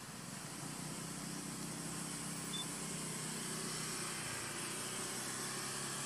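A motor engine running steadily as a low hum that sets in about half a second in, over a constant high hiss.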